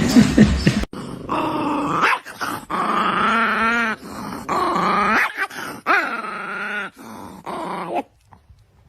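A dog "talking back": a string of about five drawn-out, wavering whine-howls and grumbles with short pauses between them. A brief loud noise comes first, in the opening second.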